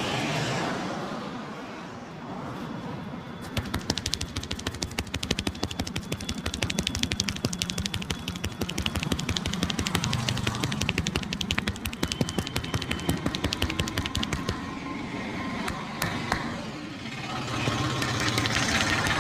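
Rapid, even slapping of hands in a percussive head-and-body massage, many strokes a second, starting about three and a half seconds in and stopping about eleven seconds later. A low traffic hum sits underneath.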